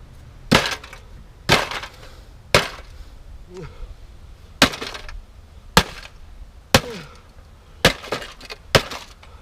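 Sledgehammer blows on the magnetron of a fire-charred microwave: about eight heavy metallic strikes, roughly one a second with a couple of short gaps.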